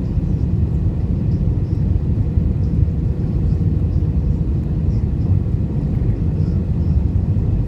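Airbus A320 airliner on its approach to landing: a steady low rumble of engines and airflow.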